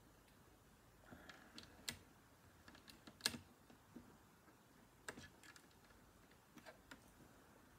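Small plastic Lego pieces clicking and tapping as they are handled and pressed together: scattered light clicks, the loudest about three seconds in.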